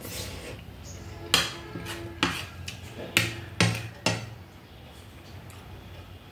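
A metal spoon clinking and scraping against a ceramic plate and bowl while eating, with several sharp clinks that each ring briefly.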